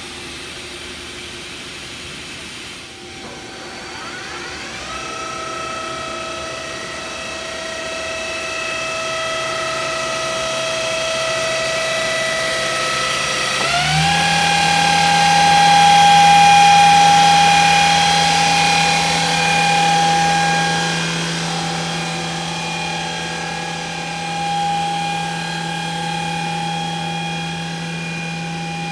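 The 6,000 RPM 50-taper spindle of a Mazak VTC-200/50 vertical machining center running up to speed with a steady whine. The pitch climbs about four seconds in, creeps slowly upward, then steps sharply higher about halfway through and holds.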